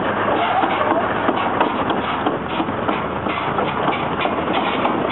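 An engine running steadily at idle, with a clatter of small irregular clicks over it.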